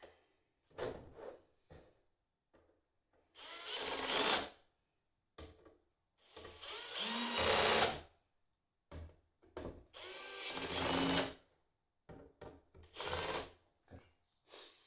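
Cordless drill-driver running in about five short bursts of a second or so each, driving the screws that fasten the BMS board to the battery case's front panel, with small clicks of handling between the bursts.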